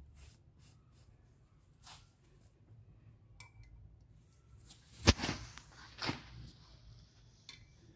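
Faint small clicks, then a sharp metal clank about five seconds in and a second, softer knock a second later: steel parts of a hydraulic piston pump knocking together as they are handled during reassembly.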